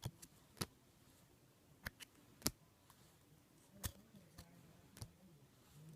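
Scattered sharp clicks and taps from trading cards and their packaging being handled and flipped through, about eight in all at uneven spacing.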